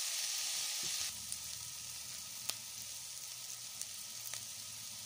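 Sliced onions sizzling in hot oil in an aluminium sufuria as they cook down toward caramelizing. The sizzle drops a little about a second in, then goes on steadily with a few light clicks.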